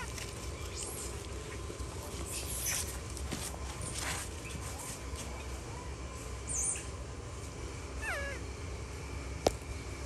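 Baby macaque giving a short call that falls in pitch about eight seconds in, with a thin high squeak shortly before. A single sharp click comes near the end.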